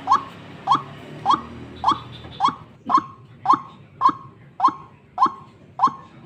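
White-breasted waterhen (ruak-ruak) decoy bird calling, a short rising note repeated steadily nearly twice a second.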